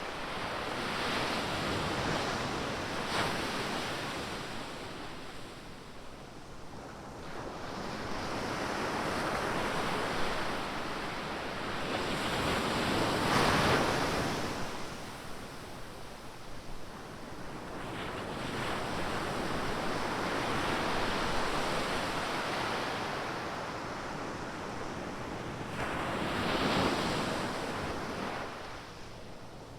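Ocean surf: waves breaking and washing up the beach in slow surges every several seconds, with the biggest break about halfway through. Wind rumbles on the microphone underneath.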